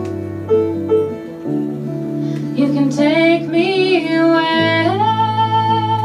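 Live band playing a slow song: guitars and piano sustain chords, and a female voice comes in singing about two and a half seconds in, sliding between notes before holding one long note near the end.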